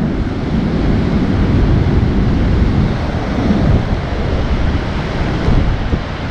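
Wind buffeting the microphone over a rough sea, heavy surf breaking on rocks and concrete breakwater blocks, making a steady rushing noise.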